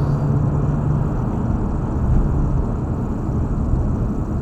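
Steady road and engine noise of a car cruising at highway speed, heard inside the cabin, with a low engine hum that fades about halfway through.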